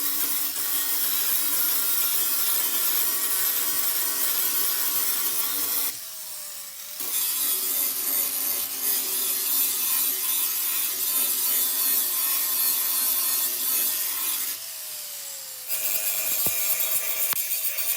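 Abrasive power tool, such as a sander or grinder, running against car bodywork with a loud, even scraping hiss over a steady motor hum. The tool comes off the surface briefly twice, about 6 s in and again near 15 s, while the motor keeps spinning and its pitch shifts, then goes back to work.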